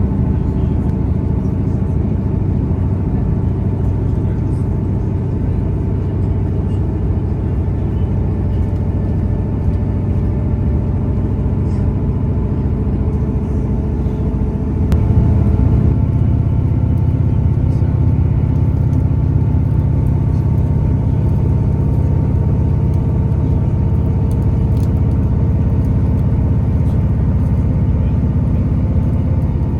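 Steady rumble of a three-carriage diesel regional train heard from inside the carriage, with a droning engine note over the running noise; it gets louder about halfway through and stays there.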